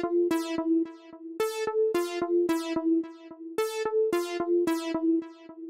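Channel intro music: a repeating riff of short, sharply struck notes, about three a second.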